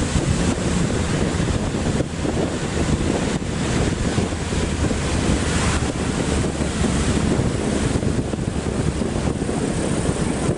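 Wind rushing over the microphone of a camera riding on the front of a moving bus, over a steady low rumble of the bus running on the road.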